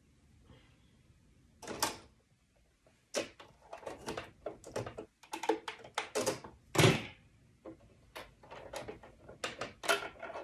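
Irregular plastic-and-metal clicks, taps and knocks from hands working at the presser-foot and needle area of a Brother Innovis sewing machine, fitting the foot for sewing on buttons. One heavier knock comes about seven seconds in. The machine is not stitching.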